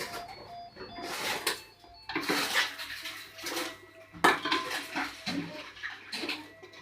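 Empty drink cans and plastic bottles clattering and crinkling as they are handled one after another, with a sharp knock just after four seconds in.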